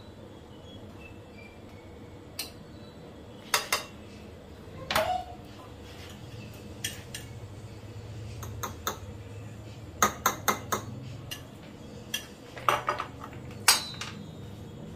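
Metal serving utensils clinking and tapping against a glass plate, in scattered sharp clinks with a quick run of them about ten seconds in.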